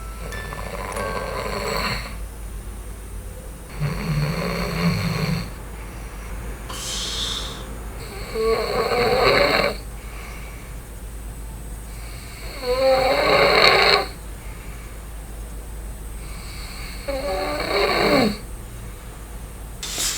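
A man snoring in his sleep while wearing a nasal-plug anti-snoring device, about five snores some four seconds apart over a steady low hum. The device is not helping: the sleeper says his airway is blocked as he breathes in.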